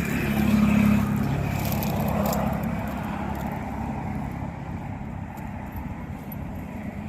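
A motor vehicle's engine passing, loudest about a second in and then fading away.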